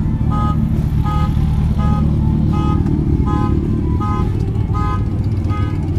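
Deep, steady rumble of motorcycle engines running nearby, with a short pitched beep-like note repeating about every three-quarters of a second over it.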